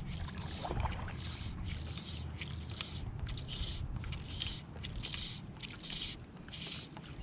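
Fly line being stripped in through the rod guides in short pulls, each a brief hiss about once a second, while a streamer is retrieved. Moving river water makes a low rumble underneath.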